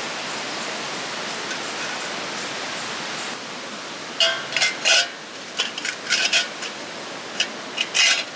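Metal parts of a compact YOLER fire pit clinking and clattering against each other as they are handled, a run of sharp metallic clinks from about four seconds in. A steady hiss runs underneath.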